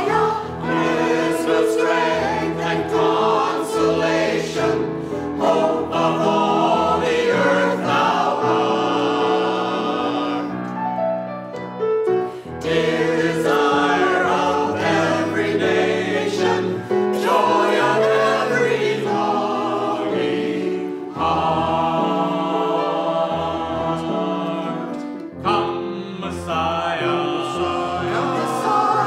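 Mixed church choir singing a sacred Christmas anthem in parts, accompanied by grand piano, with a brief thinner passage about ten seconds in.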